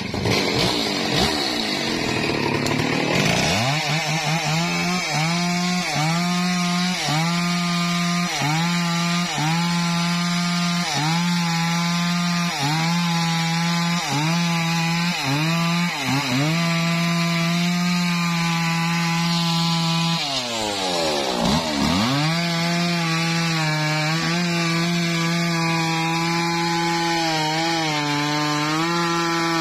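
Two-stroke petrol chainsaw revving up over the first few seconds, then running at full throttle as it cuts into a tree trunk, its pitch dipping briefly about once a second. About 21 seconds in, the engine speed drops steeply and revs back up before it goes on cutting.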